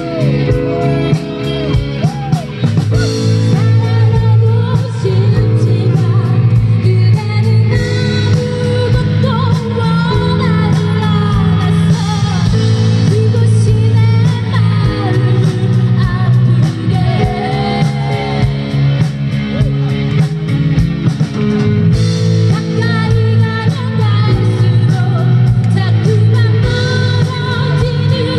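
Live band playing a rock-pop song through a PA system: amplified guitars over a steady beat, with a woman singing lead.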